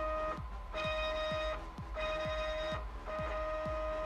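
Stepper motors of a CoreXY 3D printer driving the X and Y axes in a test: a steady whine during each move, in runs of about a second with brief pauses between them.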